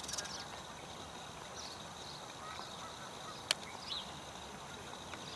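House sparrows giving a few short, faint chirps over steady outdoor background hiss. There is a brief fluttering rustle right at the start as one sparrow spreads and shakes its wings, and a single sharp tick about three and a half seconds in.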